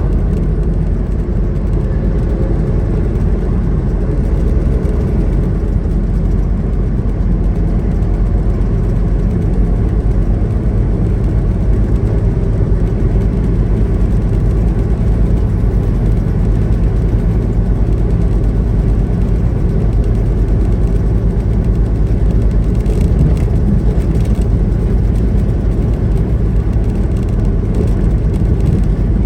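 Semi truck driving at steady speed: a constant low engine drone mixed with road noise.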